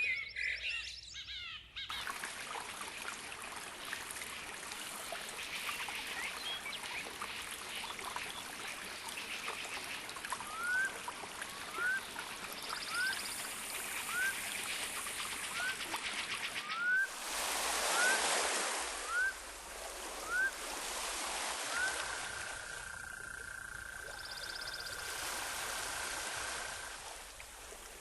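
A steady rush of flowing water, with a bird calling over it: about ten short rising whistles, a second or so apart, then one steady whistle held for several seconds.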